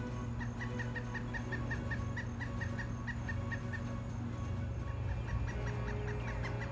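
Woodpecker calling: a fast run of short, even, high notes, about five a second, that breaks off near the middle and starts again. A steady low hum runs underneath.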